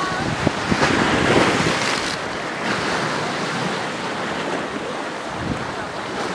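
Sea waves washing and lapping, with wind buffeting the microphone.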